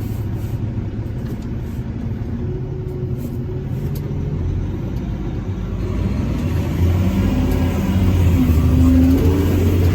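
Caterpillar 730 articulated dump truck's diesel engine running, a low rumble that grows louder about seven seconds in.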